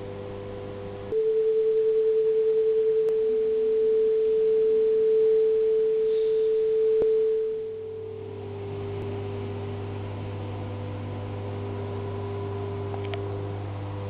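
Pure electronic sine tones from a sound installation played over loudspeakers: a steady chord of several pure tones over a low hum. About a second in, one loud single tone takes over, pulsing rapidly at first. Near the middle it fades and the chord of tones and hum returns.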